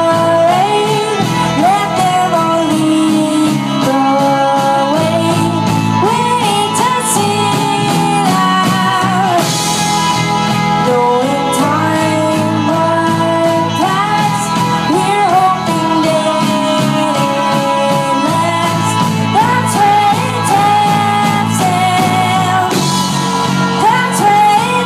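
Live indie pop band playing: a woman sings the lead over keyboard, electric guitar and drums, with cymbal crashes about ten seconds in and again near the end.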